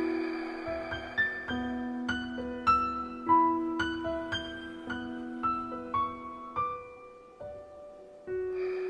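Slow piano music: held low chords under a sparse melody of single notes that ring and fade. The notes thin out about seven seconds in, and a new chord enters near the end.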